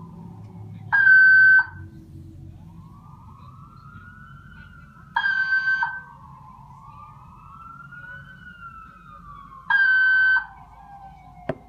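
Building fire alarm sounding its intermittent alert tone: a loud, steady electronic tone about two-thirds of a second long, three times, about four and a half seconds apart, kept on after the alarm was found false. Underneath, a faint siren wails slowly up and down, typical of a fire truck's wail siren. A sharp click comes near the end.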